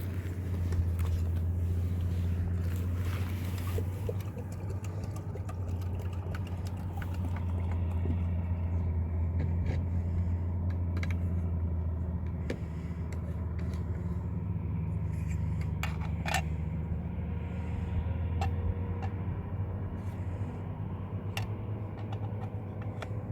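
A steady low engine hum, as of a motor vehicle running, with scattered light clicks and knocks over it.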